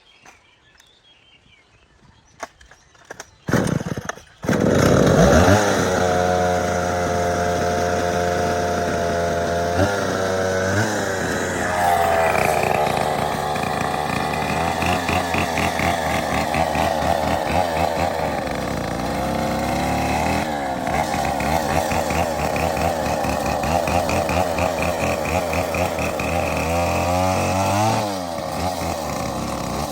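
A few short knocks, then a chainsaw starts about four seconds in and runs loudly for the rest of the time. Its pitch rises and falls as it is revved and cuts into a palm trunk.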